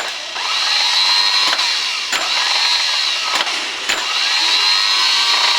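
24-volt starter motor for a Mitsubishi 8DC9, freshly fitted with a new solenoid and carbon brushes, running free on the bench: it spins up with a high whine, runs steadily, and is switched off and on again, with sharp clicks between runs. The clean free spin shows the repaired starter working.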